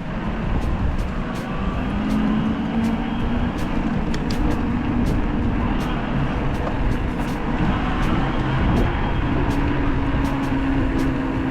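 Riding noise of a moving bike: a steady low rumble with a wavering hum and scattered light ticks.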